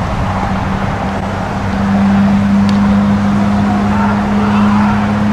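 A steady low motor hum that grows louder about two seconds in, over a constant rushing noise.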